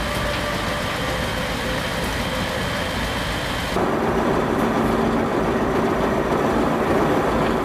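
A steady engine running, with a few constant tones in it and no gunfire; the sound jumps abruptly louder about halfway through.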